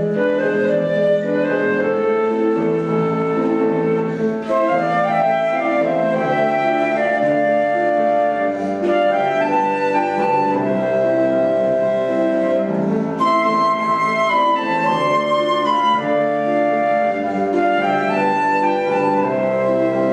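Instrumental duet playing a melody over sustained chords, with held, steady notes in several voices at once.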